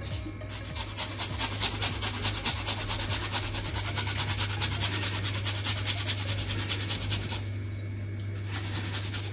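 Garlic clove being rubbed back and forth on a hand grater, a steady rasping at about four strokes a second. The strokes break off briefly about seven and a half seconds in, then go on more faintly.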